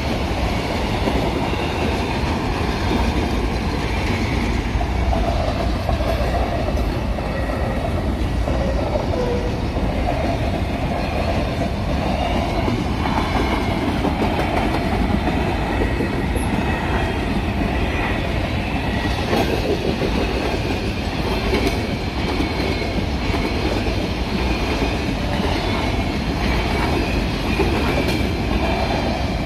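Long freight train of boxcars and hopper cars rolling steadily past at close range: the unbroken rumble and clatter of steel wheels on the rails, with faint high squealing tones from the wheels.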